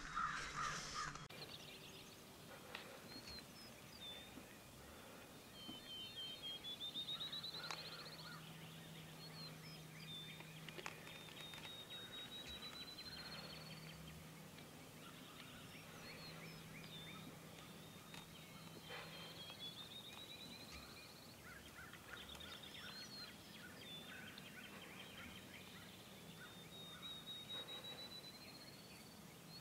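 Distant wild turkey gobbler gobbling several times. A songbird sings a high, rising trilled phrase every few seconds between the gobbles.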